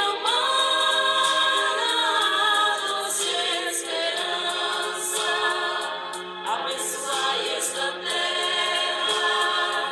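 Background music with a choir singing sustained, slowly moving vocal lines.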